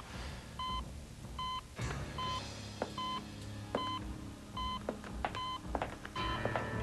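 Hospital heart monitor beeping steadily, one short electronic beep about every 0.8 seconds, with a few scattered knocks and a low hum beneath.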